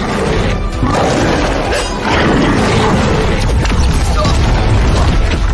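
Soundtrack music overlaid with heavy crashing and booming impact effects from an animated fight.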